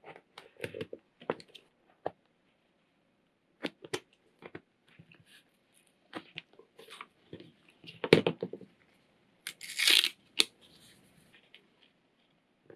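Adhesive tape being pulled off the roll and torn into strips, then pressed down onto paper and card, among short taps and paper rustling. A loud knock comes about eight seconds in, followed shortly by the longest, hissing pull of tape.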